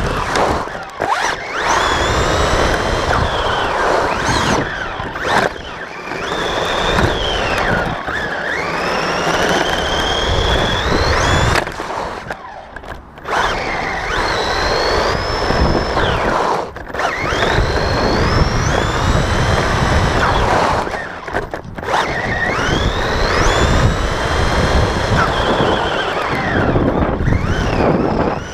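Team Associated RC10B4.2 electric RC buggy driven hard on asphalt, heard on board: the motor's whine climbs with each burst of throttle and falls away, over a steady rumble of tyres and chassis on the road surface. There are several brief lulls where the buggy slows.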